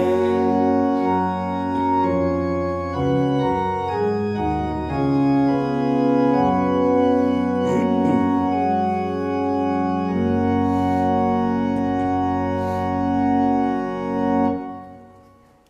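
Organ playing a hymn tune in slow, sustained chords, which die away about a second before the end.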